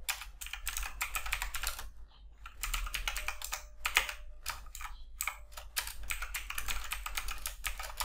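Typing on a computer keyboard: quick runs of keystrokes, with a brief pause about two seconds in.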